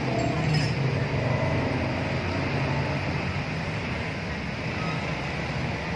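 Diesel engine of a large coach bus running at low speed as the bus moves slowly past, a steady low drone that eases slightly over the last few seconds.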